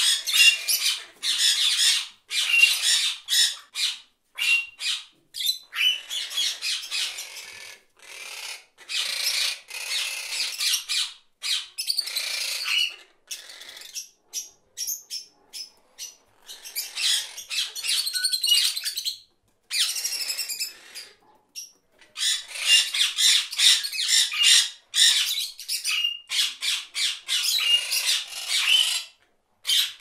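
Parrot squawking: harsh calls in quick runs, broken by short pauses.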